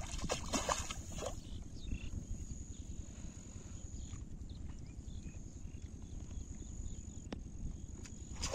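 Water splashing and sloshing at a pond's grassy edge as a caught fish is handled in the shallows, a cluster of splashes in the first second or so and another burst at the very end, over a steady low rumble.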